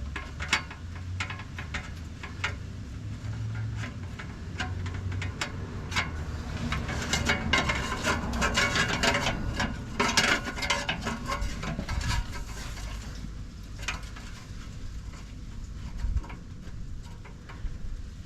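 Hose clamp being finger-tightened around an exhaust pipe joint: metal rubbing and scraping with scattered clicks, busiest in the middle.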